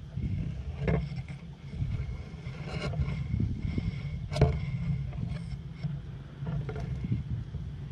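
Wind buffeting the microphone with a steady low rumble, broken by scattered short ticks and rustles, the sharpest about four and a half seconds in.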